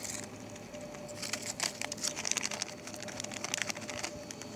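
Irregular rustling and crackling: a run of small, quick clicks that starts about a second in, over a faint steady hum.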